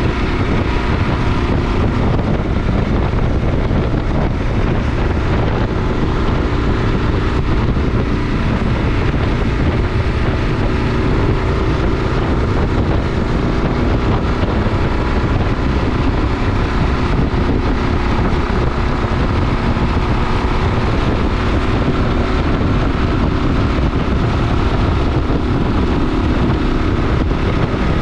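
Kawasaki KLR 650's single-cylinder engine running at a steady pace under way, mixed with wind noise on the microphone.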